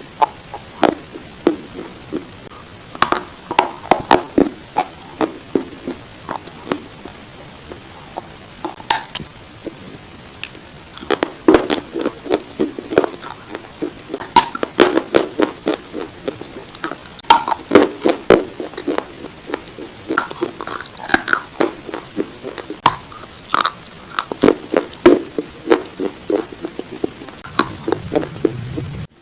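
Close-miked crunching of dry baked clay pot pieces being bitten and chewed: crisp cracks and gritty crackling in bursts, with short pauses between.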